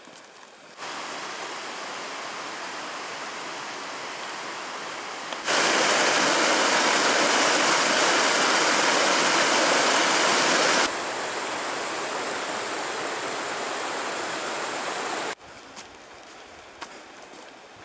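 Mountain stream rushing over rocks: a steady hiss of running water that starts suddenly about a second in, is loudest for several seconds in the middle, and cuts off suddenly a little before the end.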